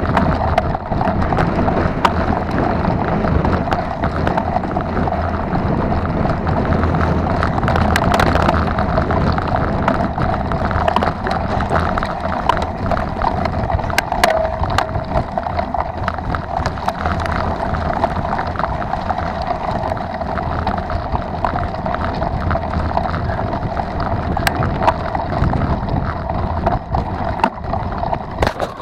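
Mountain bike ridden fast over a rough dirt and mud track, heard from a camera on the rider: a steady rush of wind on the microphone and tyre noise, broken by frequent rattling clicks and knocks as the bike goes over bumps.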